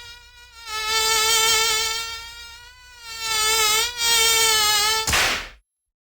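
Samsung SGH-E730 mobile phone ringtone: one long, buzzy synthesised tone with a slightly wavering pitch that swells and fades twice, ending in a short burst of hiss about five seconds in.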